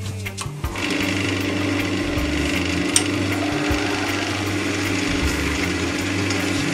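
Small wood lathe spinning a wooden disc while a turning chisel cuts across its face: a steady scraping cut that starts about a second in, with a steady hum under it.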